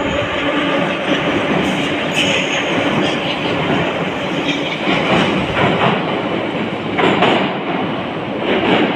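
An 81-541.2-series metro train pulls out of an underground station and picks up speed past the platform. Its wheels clatter steadily, with several sharp clacks over rail joints in the second half.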